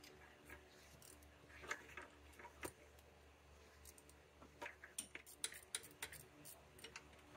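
Faint, irregular clicking of a ratchet and spark plug socket being worked counterclockwise to loosen a spark plug from a 5.3L V8, with a quicker run of clicks about two-thirds of the way through.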